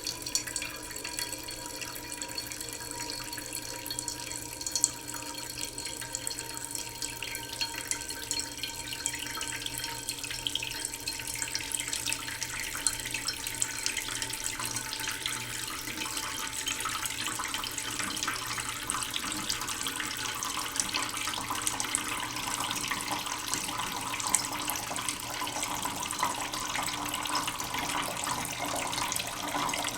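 Tap water running slowly into a cooking pot in a sink, a steady trickle and splash that grows gradually louder as the pot fills.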